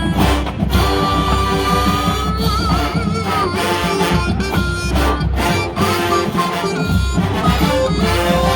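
Marching band music: a lead melody holding long notes that waver, over a steady beat.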